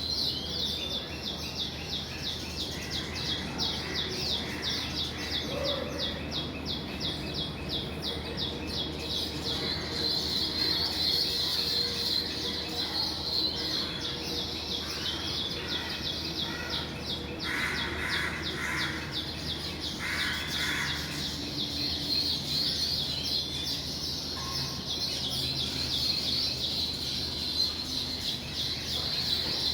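A colony of baya weavers chattering at their nests: a dense, unbroken run of rapid high chirps, with a few lower calls midway.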